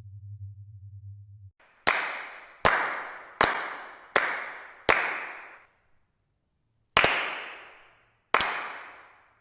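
Seven sharp cracks, each fading out over about a second. Five come in an even run, and two more follow after a short pause. A low hum stops just before the first crack.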